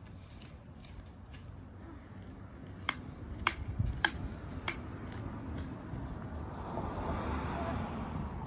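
Footsteps of slide sandals slapping on a concrete driveway: four sharp slaps about half a second apart. A rushing noise swells near the end.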